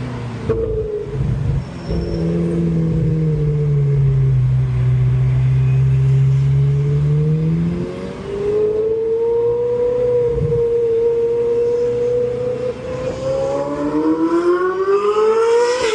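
Ferrari 458 Italia's naturally aspirated 4.5-litre V8 running under way, its note sliding down and back up with engine speed. Near the end it climbs steadily in pitch as the engine revs up under acceleration.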